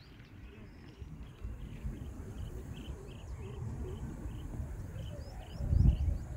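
Wind buffeting the microphone as a low, gusty rumble, with a stronger gust near the end. Above it a short, high chirp repeats evenly, about two or three times a second.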